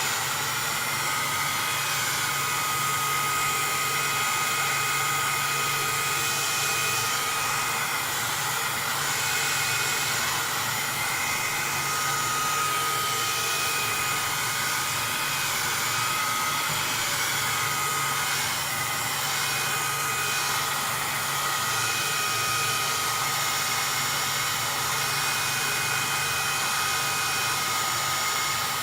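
Heat gun blowing steadily over a PlayStation 3 motherboard to reflow it, a constant rush of air with a faint high whistle from the blower running through it.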